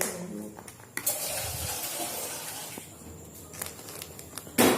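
Water running for about two seconds, fading out, followed by a few light clicks and a short, sharp knock near the end.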